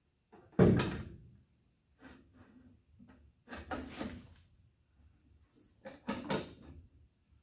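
Metal hood air scoop being set down onto the engine's air cleaner base: a sharp clunk about half a second in, then lighter knocks and scrapes around three and a half and six seconds in as it is shifted into place.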